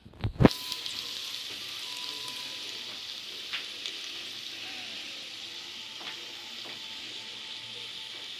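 Garlic frying in hot oil in a pan. The sizzle starts suddenly with a clatter about half a second in, then runs steadily with a few scattered pops.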